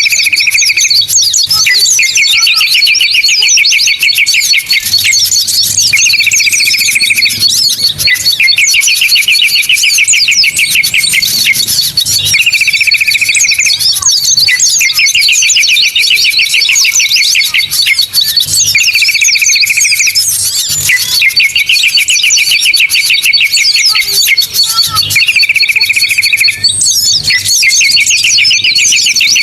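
A dense chorus of small songbirds chirping and twittering, over which a short call and a longer fast trill repeat as a pair about every six and a half seconds: a looped bird-lure recording.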